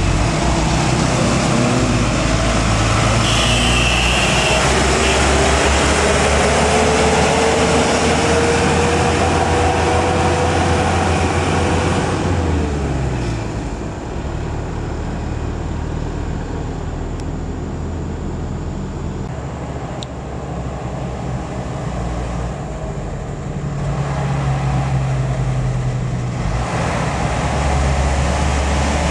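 Light diesel truck engine running as the truck passes. A whine rises in pitch and then drops away about twelve seconds in, and the engine fades as the truck moves off. A second diesel truck comes closer and grows louder near the end.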